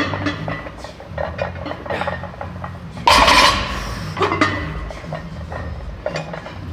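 A loaded barbell with bumper plates is set down on the floor at the bottom of a deadlift rep. There is one loud clank about three seconds in, with the plates rattling and ringing briefly, amid small clinks of gym equipment.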